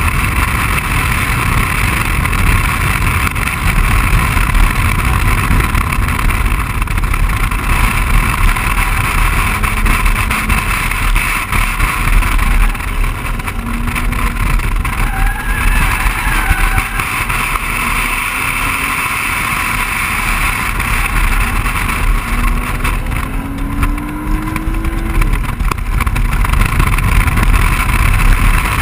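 A BMW 135i lapping a race track: a loud, steady rush of wind and road noise, with the car's turbocharged 3.0-litre inline-six running underneath. The engine's pitch rises several times, most clearly near the end, as the car accelerates through the gears.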